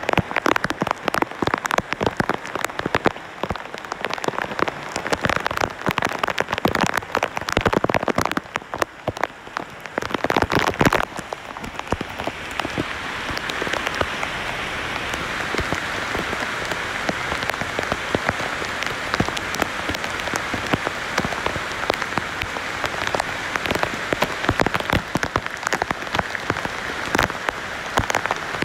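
Heavy rain falling among tree leaves. For the first ten seconds or so, dense, sharp close drop hits stand out. After that it settles into a steady, even rush of rain.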